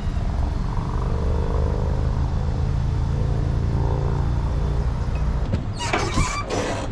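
Boat motor running steadily with a low rumble and a faint hum above it; a burst of clattering noise near the end.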